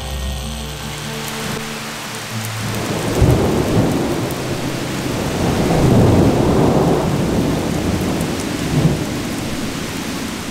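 Heavy rain falling steadily, with thunder rumbling in about three seconds in and swelling to its loudest around six seconds.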